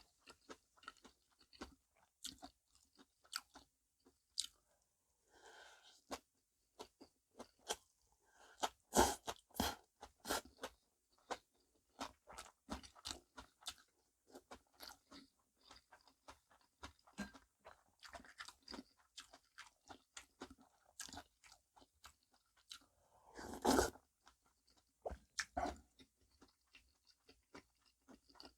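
Close-miked chewing of namul bibimbap (rice mixed with seasoned vegetables), a steady run of small wet, crunchy mouth clicks and smacks. There are louder bursts of chewing about nine seconds in and again near the end.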